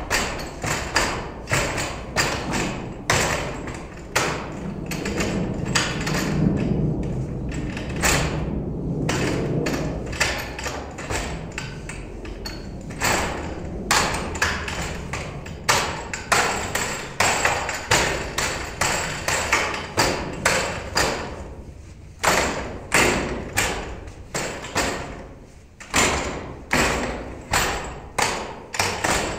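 Wing Tsun wooden dummy (mook yan jong) being worked: quick, irregular strings of sharp wooden knocks and thuds as forearms and hands strike its arms and trunk, with short pauses between sequences.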